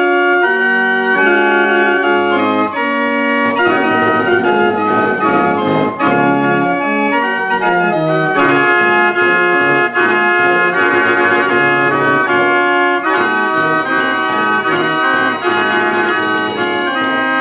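Astor barrel organ of about 1800, hand-cranked, its pipes playing a tune of held notes in several parts. About two-thirds of the way through, the sound turns brighter, with more high notes added.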